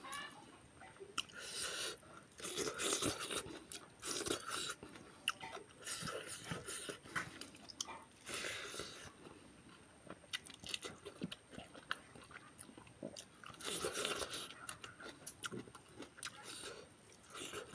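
Close-up eating sounds: food being bitten and chewed with a crunch, in bursts of about a second, with small wet mouth clicks between them.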